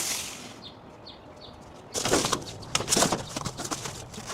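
Old soda cans and boxes being handled: a fading hiss at the start, then from about halfway a run of clattering knocks and scrapes.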